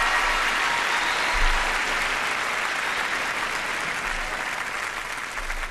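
A large concert-hall audience applauding, the clapping slowly dying down.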